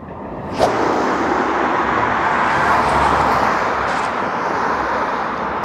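Street traffic noise, a passing motor vehicle's steady rush that swells to its loudest midway and then eases off. There is a brief knock about half a second in.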